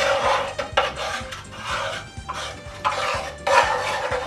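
A spoon stirring cream and consommé, scraping round the inside of the pan in quick repeated strokes.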